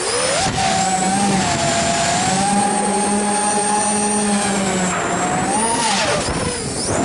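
FPV quadcopter's electric motors and propellers whining as it flies, the pitch holding fairly steady and then dropping and surging back up about six seconds in as the throttle is chopped and punched through a flip or roll.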